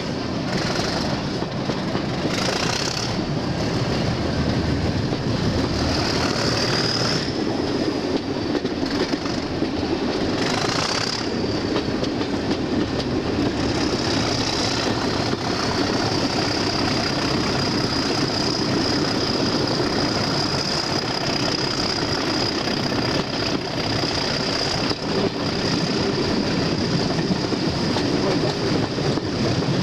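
Class 37 diesel locomotive 97301's English Electric V12 engine working hard as it pulls its train away, heard from a carriage window a few coaches back. A high turbocharger whistle rises and falls a few times in the first half, then holds steady.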